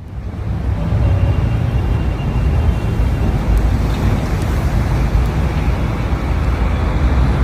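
Loud, steady city street noise: a deep rumble with a hiss over it, building up over the first second.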